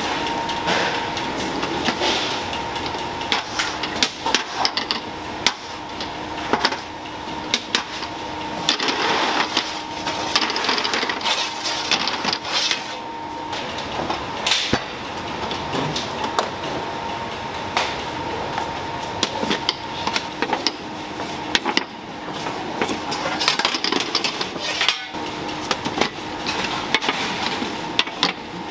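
Bakery work sounds: frequent sharp metal clinks and knocks from baking trays, cake molds and the deck oven being handled, over a steady machinery hum.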